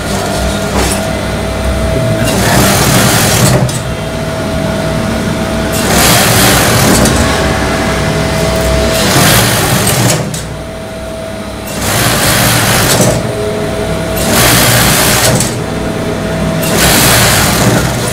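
Industrial coverstitch machine sewing a 2 cm hem in six short runs of about a second each, roughly every two and a half seconds, with a steady hum in the pauses between runs.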